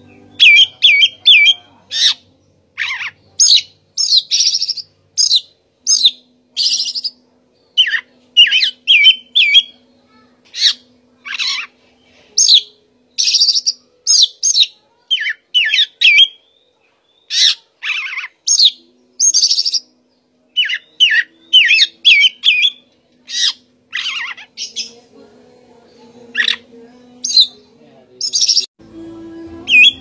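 Oriental magpie-robin (Copsychus saularis) singing: a loud, varied song of short whistled phrases and quick buzzy notes, some sweeping downward, one after another with brief gaps and one pause about three quarters of the way through.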